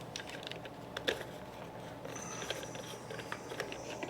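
Irregular light clicks, ticks and small rattles of small hardware being handled and fitted by hand, with a few sharper clicks.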